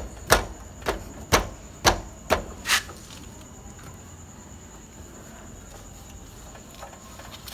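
Hammer tapping on a motorcycle's rear wheel assembly: about seven sharp knocks in quick succession over the first three seconds, then stopping.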